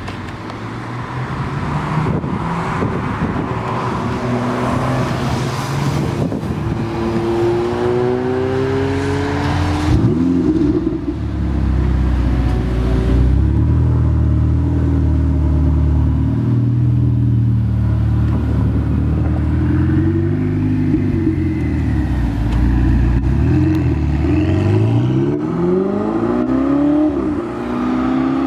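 Ferrari 488 GTB's twin-turbo V8 engine: revs climb in a rising note, it then idles with a low steady burble, and near the end it accelerates hard, pitch rising through the revs with a brief drop at a gear change.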